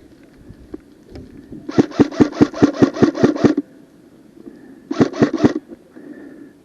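Airsoft gun firing two quick strings of shots, about seven a second: a run of roughly a dozen, then a shorter run of about five a second later.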